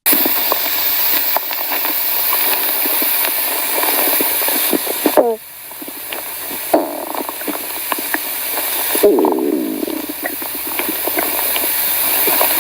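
Cartoon stomach-growl sound effect: a long hissing, gurgling rumble with wobbling gurgles. It dips about five seconds in, then swells again with a burst of gurgles around nine seconds.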